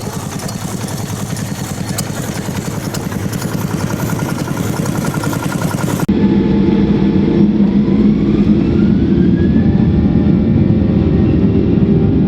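An old engine running with a steady, even firing beat. About six seconds in, it cuts off abruptly and music takes over, with a low drone and a slowly rising tone.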